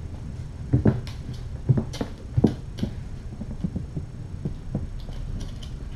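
Kittens scampering and pouncing in play: a run of irregular soft thumps and knocks, densest in the first three seconds, over a steady low hum, with a few light clicks near the end.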